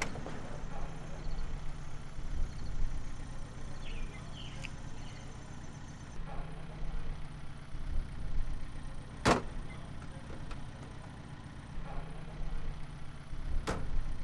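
A car engine idling with a steady low rumble, with two sharp knocks of the car door being shut, about nine and about thirteen and a half seconds in.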